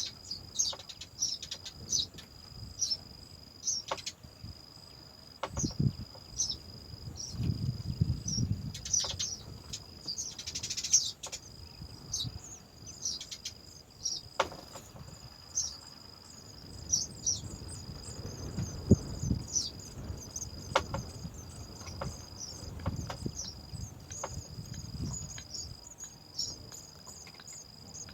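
A steady high-pitched insect trill, cricket-like, runs throughout, with many short, quick bird chirps over it. Soft low rumbles come and go twice.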